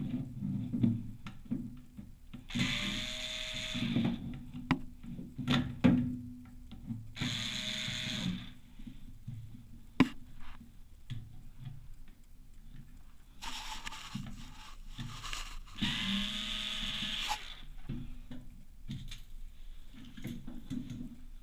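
Washing machine drain pump running in short spells of about a second, over rattling and knocking, the sign of a jamming drain pump.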